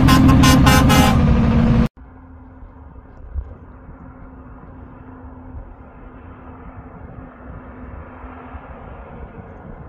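A loud horn blast, like a truck air horn, sounds for about two seconds and then cuts off suddenly. After it comes a faint, steady rumble of heavy trucks on a highway, with wind on the microphone.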